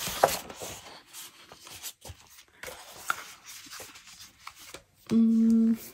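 Sheets of scrapbook paper sliding and rustling against each other and the cutting mat as they are fanned out by hand, with faint scrapes and light taps. About five seconds in comes a short steady hum, under a second long, the loudest sound here.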